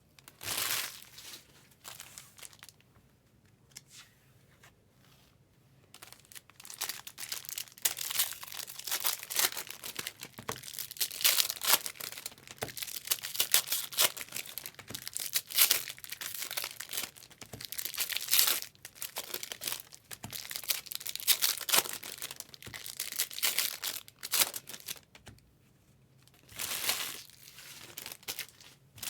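Trading-card pack wrappers being torn open and crinkled, in irregular bursts of rustling with a quieter lull a few seconds in and another near the end.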